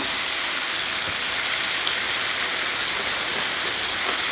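Beef steaks sizzling steadily on an electric tabletop grill plate.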